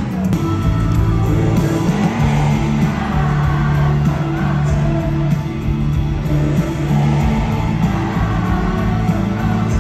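Background pop song with a steady bass line and guitar, playing without vocals at this point.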